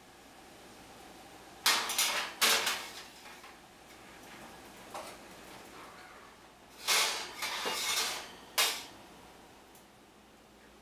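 Metal baking trays clattering against wire oven racks as they are handled in the oven: two sharp clanks about two seconds in, then a rattling cluster about seven seconds in that ends in one more clank.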